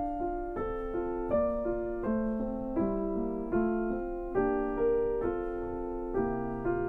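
Background piano music: single notes and chords struck at an unhurried pace, about two a second, each ringing on until the next.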